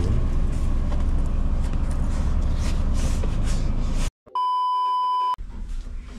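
Steady low background noise, like vehicle or traffic sound. About four seconds in it cuts out abruptly, and a steady 1 kHz bleep tone about a second long is edited in.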